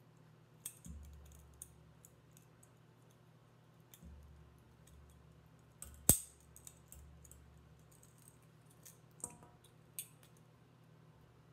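Scattered small clicks and ticks of 18-gauge wire being bent and wrapped by hand around an agate slice, with low handling rumble. One much louder sharp click about six seconds in, and two smaller ones near the end.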